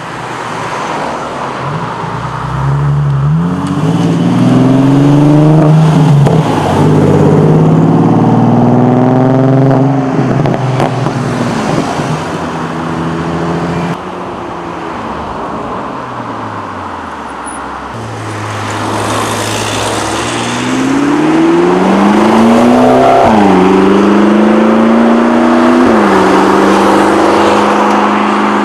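Sports car engines accelerating away, each rev climbing in pitch and stepping down at the gear changes. About halfway through the level drops suddenly, and another car's engine builds up, shifts twice and then holds a steady note.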